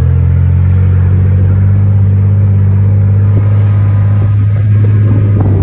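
Chevy truck's engine running at a steady speed: a loud, low, even drone.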